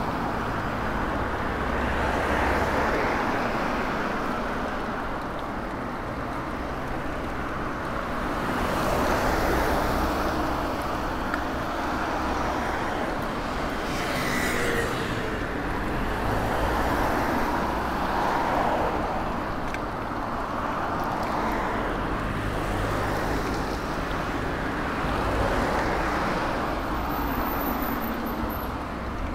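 Road traffic noise: cars going by, the sound swelling and easing every few seconds.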